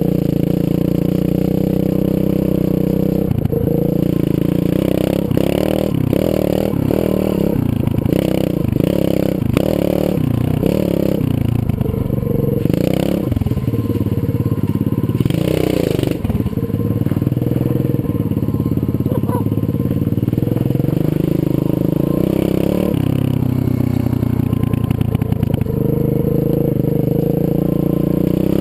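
125cc Zongshen pit bike's single-cylinder four-stroke engine running while being ridden. A few seconds in, the engine note rises and falls in a quick series of pulses for several seconds, then holds a steadier drone.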